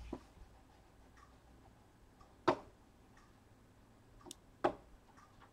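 A few faint, sharp clicks over a quiet room background; the two loudest are about two seconds apart, in the middle and near the end.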